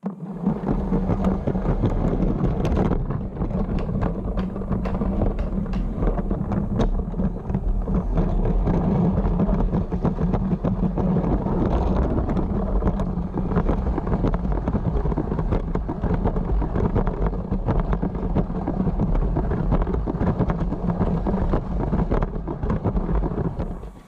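Motorised Lego City train running on plastic track: a steady motor whir with many small clicks and rattles from the wheels over the track.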